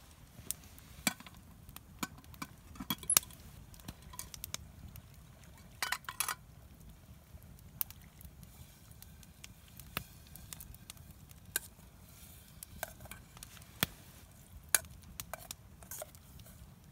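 Campfire crackling with scattered sharp snaps, and a metal spoon clinking and scraping against a pot as the chili in it is stirred.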